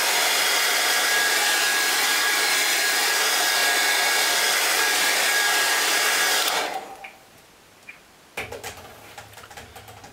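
Hair dryer blowing steadily with a faint whine, drying a wet watercolour wash, switched off about two-thirds of the way through; a few light clicks and rustles follow.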